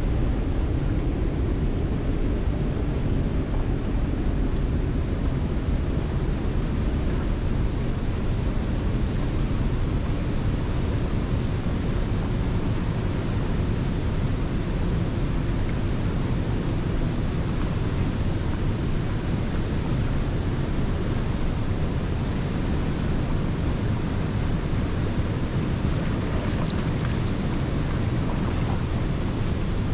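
Steady, deep rush of a waterfall and the churning whitewater in the pool below it.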